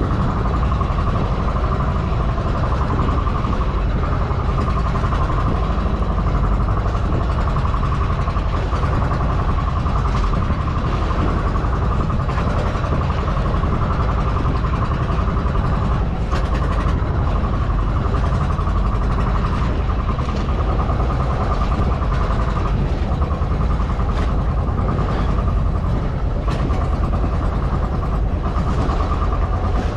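A boat engine running steadily, an even unbroken drone with no change in speed.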